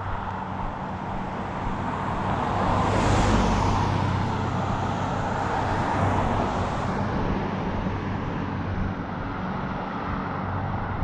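Cars passing on the road close by, their tyre and engine noise swelling to a peak about three seconds in and again about six seconds in, then easing off.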